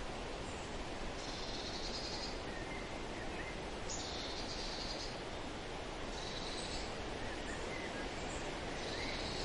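Outdoor nature ambience under the credits: a steady hiss with faint bird chirps, and a short high trill about every two to three seconds.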